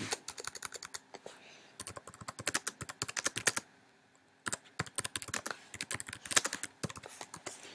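Typing on a computer keyboard: quick runs of key clicks, with a short pause about four seconds in.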